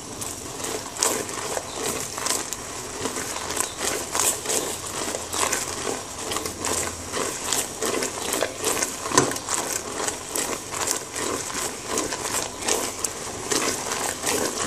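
Thick tomato-tamarind sauce bubbling and spitting in a pot while a silicone spatula stirs and scrapes the bottom: a steady run of irregular pops, clicks and scrapes. The sauce is reduced and nearly done.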